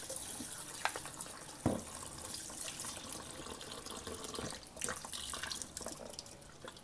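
Kitchen tap running into a bowl of salted fish bones in a stainless steel sink, with a hand swishing and rubbing the pieces in the water, rinsing the salt out. A few light knocks.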